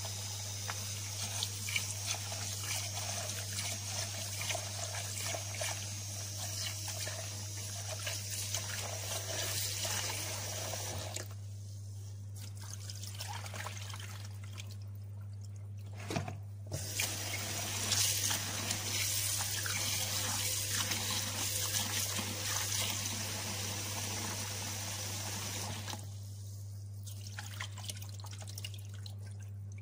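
Tap water running into a plastic basin of basmati rice as the rice is rinsed, with the flow dropping out briefly three times. A steady low hum sits underneath.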